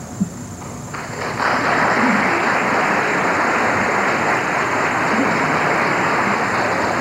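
Audience applause, starting about a second in and swelling half a second later, after a brief click.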